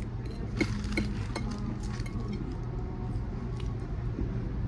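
Metal cutlery clinking lightly against a dish, a handful of scattered clinks over a steady low hum.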